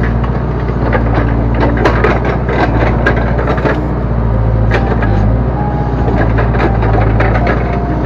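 Backhoe loader engine running steadily under load as the rear backhoe arm and bucket are worked with the hand levers, with frequent sharp knocks and clatters from the working machine, heard from the operator's seat.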